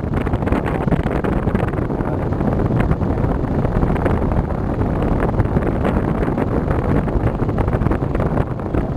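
Wind buffeting the microphone of a camera on the move: a steady, loud low rumble with no break.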